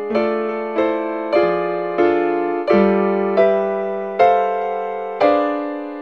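Background music: a piano playing slow chords, each struck and left to fade, about every two-thirds of a second, spacing out near the end.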